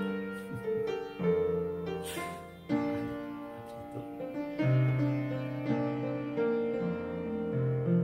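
Slow piano music, with chords and single notes held and overlapping.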